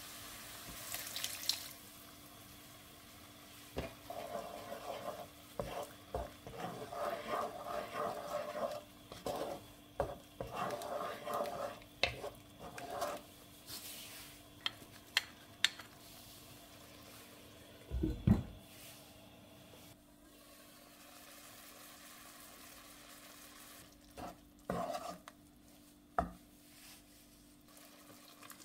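Wooden spatula stirring and scraping chopped tomatoes and tomato paste in a non-stick frying pan, with light sizzling and scattered knocks against the pan. A heavier dull thump comes a little past halfway.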